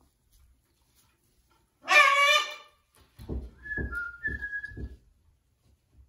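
A macaw gives one loud, harsh squawk about two seconds in. It is followed by a few short whistled notes over a string of low, muffled pulses.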